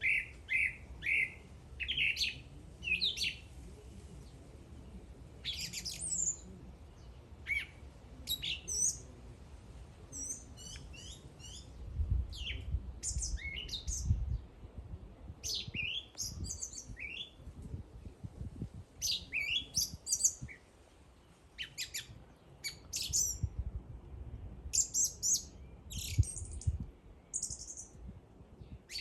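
A songbird singing a busy run of short chirps, quick whistled sweeps and trills, in rapid phrases with only brief pauses.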